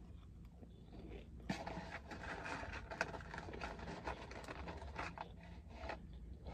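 Food packaging rustling and crinkling as it is handled, with many small crackles, starting about a second and a half in, over a low steady hum.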